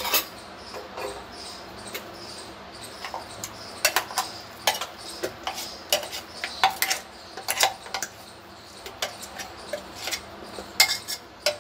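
A metal spoon scraping and knocking coarsely ground chana dal paste out of a steel mixer-grinder jar into a steel bowl. The result is irregular clinks and taps of metal on metal, coming more often after the first few seconds.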